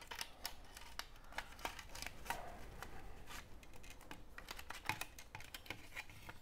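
Black plastic pieces of a BMW E39 rear door sunshade housing handled and fitted together on a workbench: a string of small irregular clicks, taps and light rubbing.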